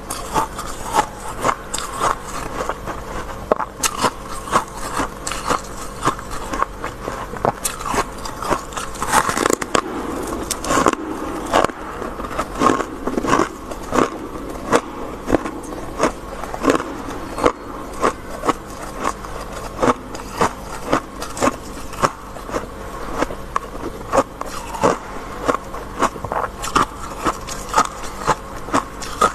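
Packed freezer frost being bitten and chewed, with sharp, irregular crunches coming one or two a second.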